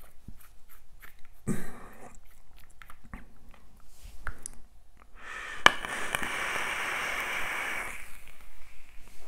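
Scattered clicks and small knocks as a vape mod is handled, then a sharp click about five and a half seconds in and a steady hissing, crackling draw of about two and a half seconds: air pulled through the e-cigarette's atomizer as the coil fires and vaporises the e-liquid.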